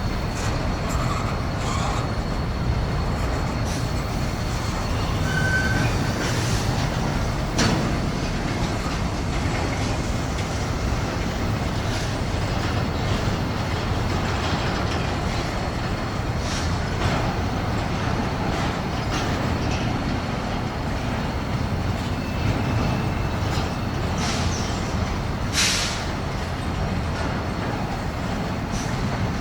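Freight train cars rolling past with a steady rumble, broken by a few sharp clanks and a brief high squeal about five seconds in.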